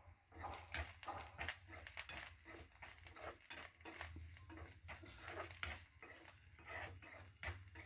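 A spatula scraping and tapping in a kadai, irregularly a few times a second, as spiced steamed-egg pieces are stirred, with faint sizzling of oil underneath.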